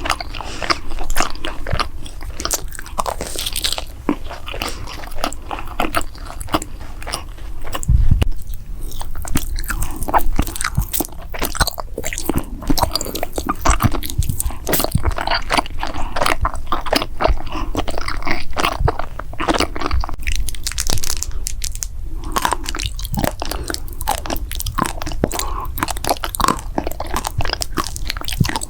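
Close-miked eating: crunchy bites and chewing of snack and dessert food, a continuous run of crisp crackles with a heavier bite about 8 seconds in.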